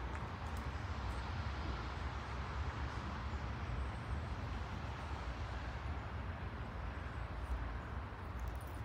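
Steady outdoor background noise: a low rumble with a hiss over it, typical of distant road traffic heard from a park.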